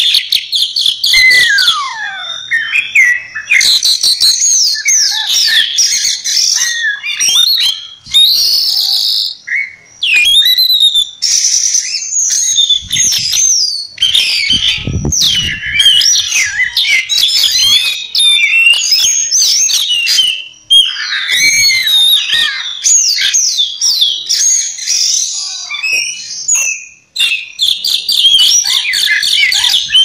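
Caged Oriental magpie-robin (kacer poci) singing a loud, almost unbroken, varied song of fast trills, sweeping whistles and chattering phrases, high-pitched, with only brief pauses. A short low rumble sounds under the song about halfway through.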